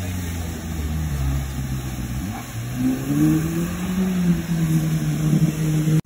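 Engine of a modified off-road 4x4 running under load, first at a steady lower pitch, then revving up about two seconds in and holding at higher revs, louder, as it drives through water.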